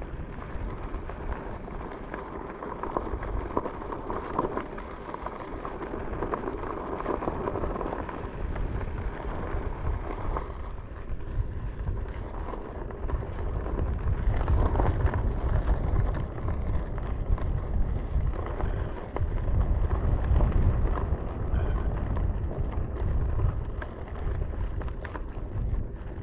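Wind buffeting the microphone with a low, uneven rumble, over the noise of tyres rolling on a sandy, rocky dirt trail while riding. It grows louder in stretches, most of all about two-thirds of the way in.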